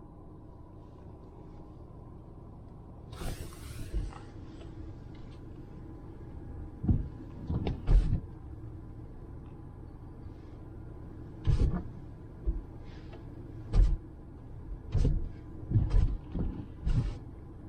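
Steady low rumble of a car cabin, with a brief hiss about three seconds in and a scattering of short, dull thumps and knocks, several close together near the end.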